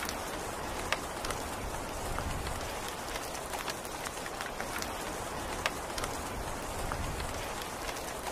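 Steady rain falling on a hard surface: a dense, even hiss with many scattered drop ticks, two sharper ones about a second in and a little past halfway.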